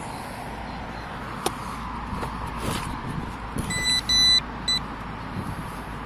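A metal detector gives three short, high, steady beeps in quick succession about four seconds in, the middle one longest and loudest, signalling metal in a freshly dug hole in turf.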